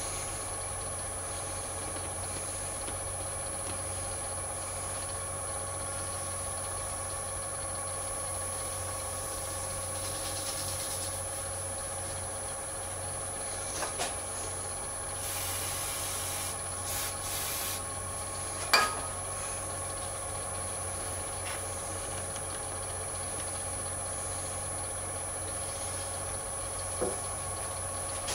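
Lathe running with a steady hum and a high whine while a turning tool cuts the end of a spinning cast Alumilite resin globe, giving short spells of hissy scraping. A few sharp clicks, the loudest about two-thirds of the way through.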